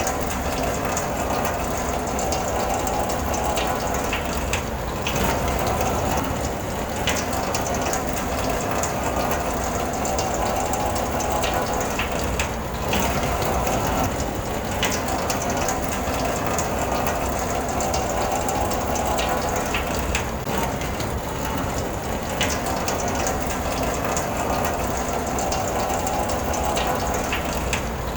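Rain falling on a car's roof and glass, heard from inside the cabin: a steady, dense patter of drops.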